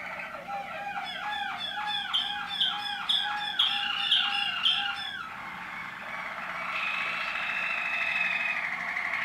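Waterslager canary singing: a run of repeated looping notes, about two and a half a second, then, from about seven seconds in, a higher, even trill.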